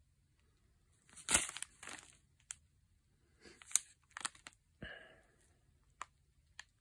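Plastic sauce-mix packets crinkling and crackling as they are handled, in a string of short, separate crackles, the loudest about a second in.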